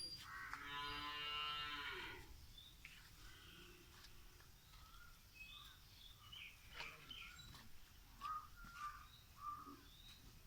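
A cow mooing once, a call of about a second and a half near the start, followed by scattered faint bird chirps.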